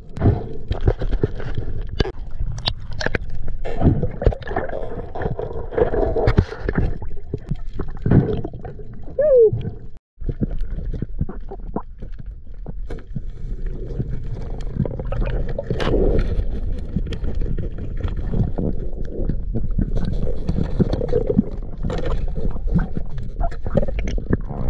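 Underwater sound picked up by a camera in its waterproof housing: muffled water rush and sloshing with scattered knocks and clicks, a short falling muffled vocal sound around nine seconds in, and a brief drop-out just after ten seconds.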